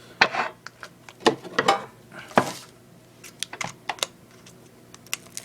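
Foil Pokémon TCG booster pack being handled and opened: short crinkling rustles and sharp plastic clicks, several times.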